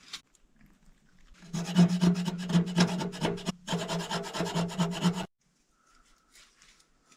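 A zipper being pulled with a rasping buzz, in two long pulls with a brief break between them, then it stops abruptly.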